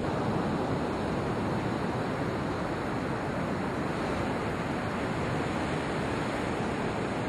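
Ocean surf breaking and washing steadily on a beach, with wind noise on the microphone.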